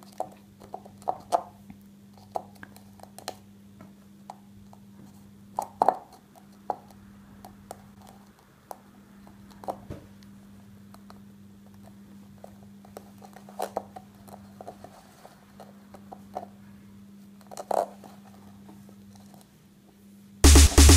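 Wool yarn and fingers handling a paper cone on a wooden table as the yarn is wound around it: scattered soft rustles, taps and scrapes over a steady low hum. Music comes in just before the end.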